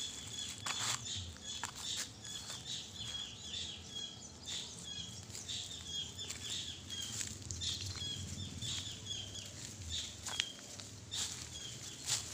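Dry leaves and bamboo litter crunching and rustling underfoot in irregular short crackles, as a person and a leashed cat walk through them.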